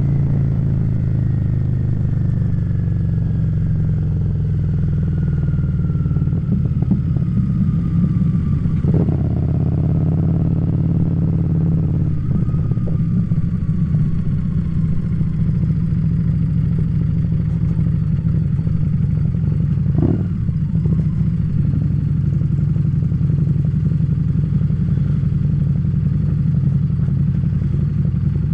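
Harley-Davidson Street Rod's V-twin engine running steadily under way. Its note changes about nine and twelve seconds in, a faint falling whine runs above it, and there is a short knock about twenty seconds in.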